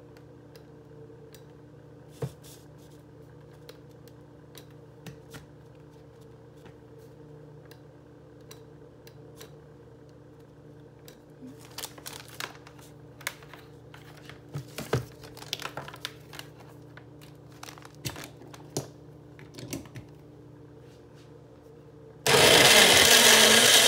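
Bella Essentials personal blender switched on near the end and running loudly for about a second and a half, churning milk and strawberries. Before it come scattered light clicks and plastic rustling as the power cord and a plastic packet are handled, over a faint steady hum.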